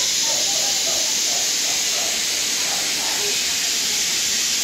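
A steady, even hiss with faint murmuring voices of people in the distance.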